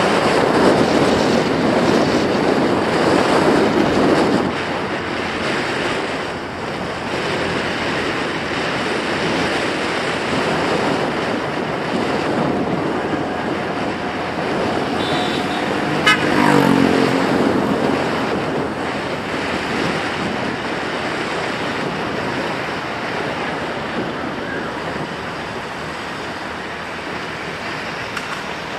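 Road traffic noise with wind rushing over the microphone, louder for the first few seconds. A short vehicle tone falls in pitch about 16 seconds in.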